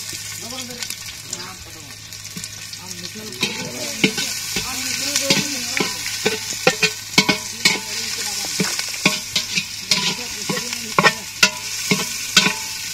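Sliced onions frying and sizzling in hot oil in an aluminium pot, stirred by hand with a spoon that knocks and scrapes against the pot's sides in quick, irregular clicks, thickest from about three seconds in.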